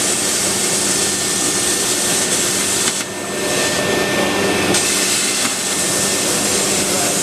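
Glass and mirror cutting machine running: a steady motor hum with a hiss over it, the hiss easing for a second or two about three seconds in.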